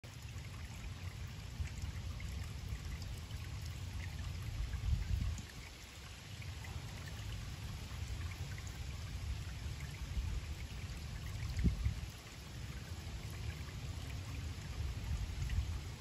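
Small pond waterfall splashing and trickling steadily into the pond, with drips and a low rumble that swells and falls back twice.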